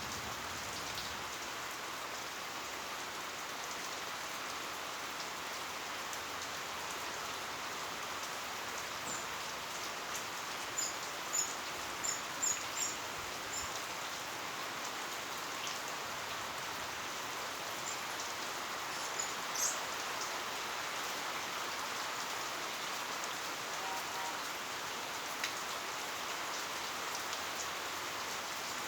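Heavy rain falling steadily, an even hiss. A run of short high chirps comes about eleven to thirteen seconds in, with another near twenty seconds.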